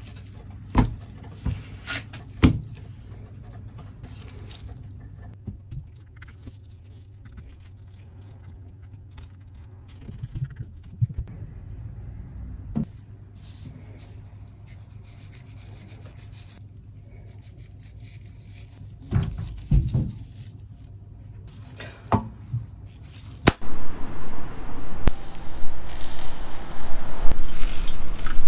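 Raw ayu (sweetfish) being handled with gloved hands and threaded onto metal skewers: soft rubbing and scraping with a few sharp knocks over a low steady hum. About 23 seconds in, a much louder, steady rushing and crackling noise begins.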